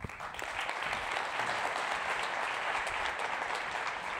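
Audience applauding: steady clapping that starts at once and begins to die away near the end.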